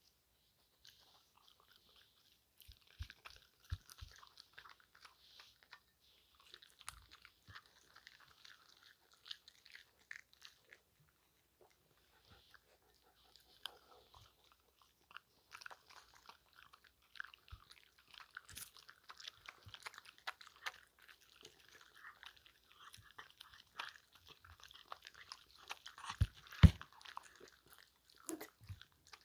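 Miniature schnauzers and West Highland white terriers chewing small treat cubes, picked up close: irregular runs of small crisp crunches and mouth smacks. A few louder knocks come near the end.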